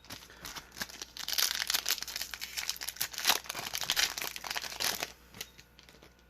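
Foil wrapper of a Yu-Gi-Oh! Maximum Gold booster pack being crinkled and torn open, a dense crackling that lasts about five seconds and then thins to a few small rustles.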